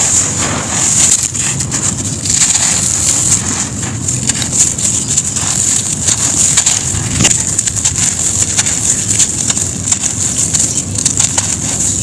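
Dry sand-cement lumps crumbling onto a hard floor: continuous gritty crunching and crackling made of many small clicks.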